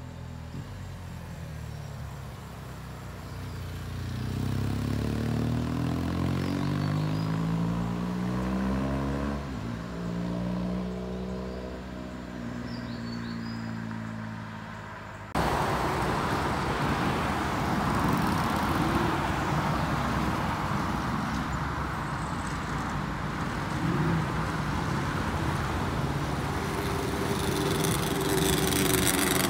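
Road traffic going past: car and motorcycle engines rising and falling in pitch as they pass. About halfway through, this jumps suddenly to louder, denser engine and traffic noise, with a Ducati sportbike's engine swelling near the end.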